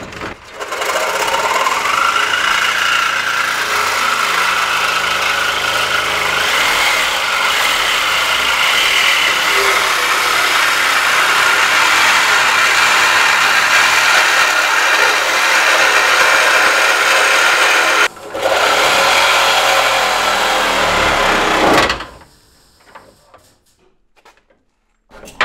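Corded reciprocating saw cutting through a car's sheet-steel front panel, running steadily. It drops out for a moment about two-thirds in and cuts off near the end, where the blade gets pinched in the cut.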